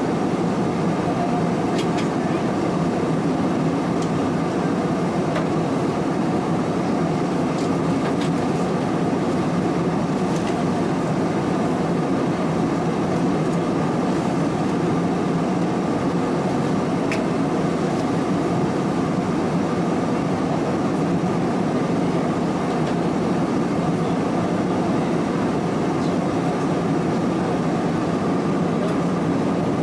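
Steady cabin roar of an Airbus A320-216 at cruise, heard inside the cabin: airflow over the fuselage mixed with the hum of its CFM56 engines, even and unbroken.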